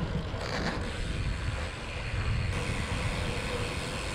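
Wind buffeting the microphone of a bike-mounted action camera while cycling along a road, a steady low rumble with a brief hiss about half a second in.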